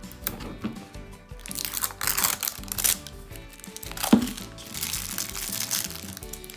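Crinkly plastic wrapping of an L.O.L. Surprise Boys toy ball rustling and crumpling as it is peeled off by hand, with one sharp crack about four seconds in. Background music plays throughout.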